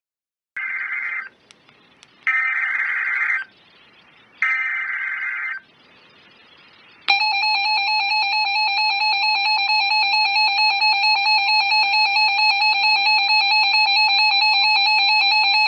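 Emergency Alert System SAME header: three separate bursts of screeching digital data tones, each about a second long. About seven seconds in, the steady, harsh EAS two-tone attention signal starts and holds; it signals that an alert message is about to be read.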